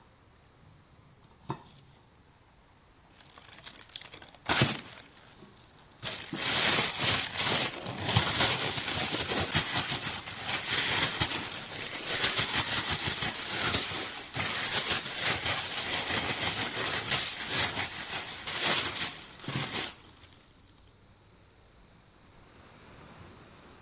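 Crinkling and rustling, dense with small clicks, from about six seconds in until about twenty seconds in. It follows a few light rustles and one sharp knock.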